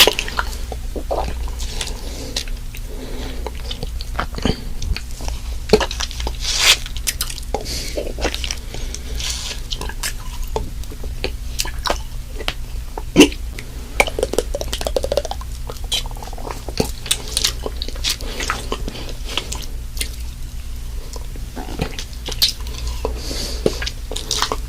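Close-miked ASMR trigger sounds: soft clicks and crackles at an irregular pace, with two sharper clicks at the start and about halfway through, over a low steady hum.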